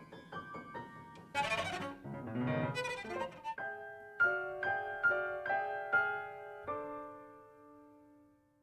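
Free-improvised cello and piano duo: soft scattered piano notes, then a short, harsh, scratchy passage of bowed cello, then about seven repeated piano chords, the last one left ringing and dying away.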